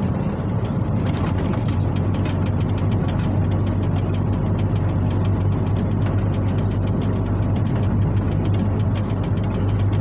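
MAN diesel truck engine running steadily at cruising speed, with a constant low hum and road noise, heard from inside the cab.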